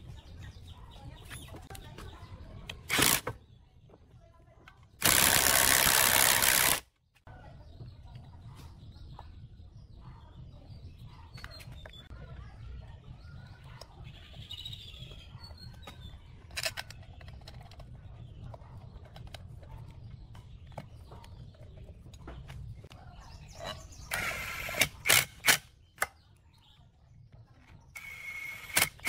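Hand assembly on a plate compactor: metal parts are handled and knocked, with a sharp bang about three seconds in and a loud two-second burst of noise soon after. Near the end a cordless drill drives the belt guard's screws in short whirring bursts. Chickens cluck faintly in the background.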